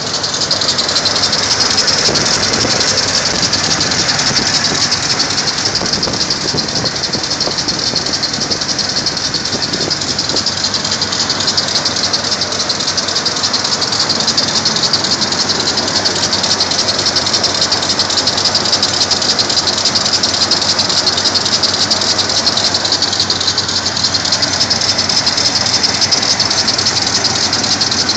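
Dodge truck engine idling steadily, freshly tuned up with new fuel injectors and cleaned spark plugs, heard close up with a dense, fast clatter over its running.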